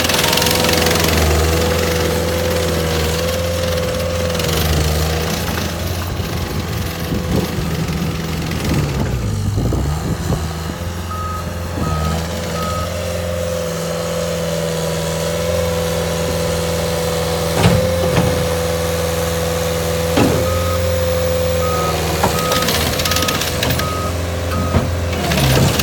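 Caterpillar 277C skid steer running steadily with a constant high whine over the diesel engine note, while its backup alarm beeps in two runs, once near the middle and again toward the end. A few sharp clicks or knocks are heard in the second half.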